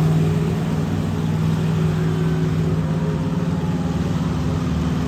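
Monster truck engine running steadily with a deep, even rumble, no big revs.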